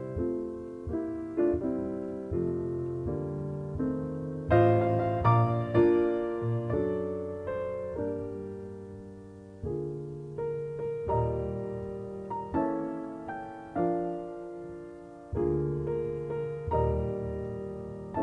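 Solo piano music: slow chords and melody, each struck note fading away, growing louder a few seconds in.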